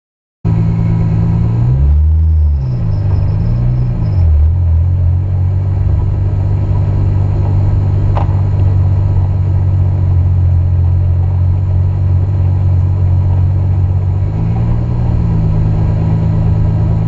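Turbocharged VW VR6 engine idling, heard from inside the car's cabin. The throttle is blipped twice a couple of seconds in and once more near the end, the pitch rising and falling back each time.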